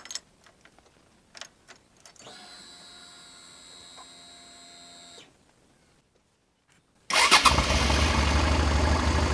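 Suzuki V-Strom 650 V-twin motorcycle engine starting after an oil change: a few light clicks and a faint steady whine, then about seven seconds in the engine catches abruptly and settles into a steady idle.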